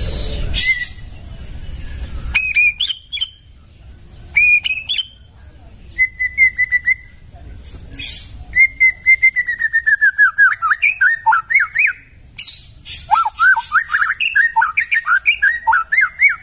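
White-rumped shama (murai batu) singing: short whistled phrases, then long fast runs of repeated notes that dip and rise, with sharp clicking chatter over them.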